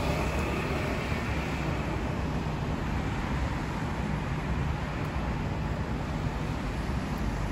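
Steady road traffic noise from cars passing on a multi-lane city street.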